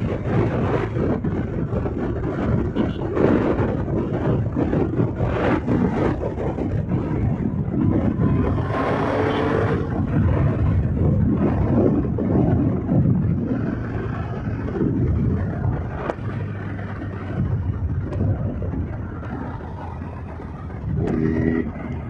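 Motorcycle riding at speed on a road: a Bajaj Pulsar 220's single-cylinder engine running under a steady rush of wind and road noise, with a brief louder hiss about nine seconds in.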